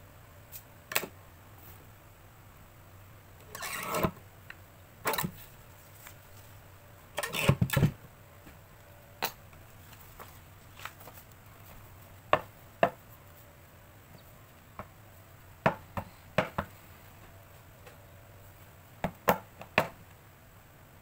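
Kraft paper board being handled on a paper trimmer. There is a scraping slide about four seconds in, a loud cluster of knocks around the middle, and scattered sharp taps and clicks of paper and tools set down on the trimmer.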